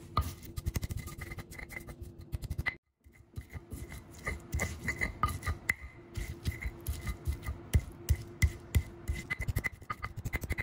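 Stone pestle grinding and crushing chili, garlic and kencur into a paste on a stone mortar (Indonesian ulekan and cobek): a quick run of rough scraping and crushing strokes, stone on stone. The strokes break off for a moment about three seconds in, then carry on.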